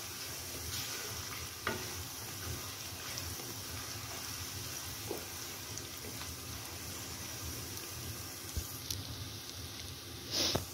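Sliced onions and whole spices sizzling in hot oil in a nonstick wok, stirred with a plastic spoon that scrapes and ticks against the pan now and then. There is a brief louder burst of noise near the end. The onions are being fried toward light brown.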